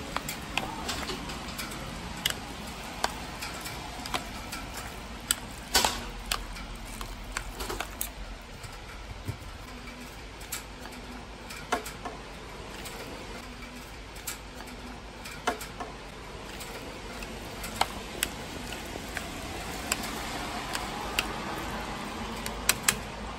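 Stainless-steel chopsticks clicking and scraping against a bowl as noodles and jajang sauce are mixed, scattered sharp clicks over a steady background hiss.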